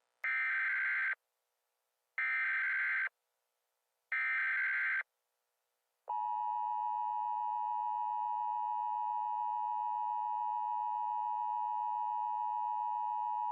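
Emergency Alert System tones: three short screeching data bursts of the SAME header, each about a second long and two seconds apart. About six seconds in, the steady two-tone EAS attention signal starts and holds, announcing an emergency alert message.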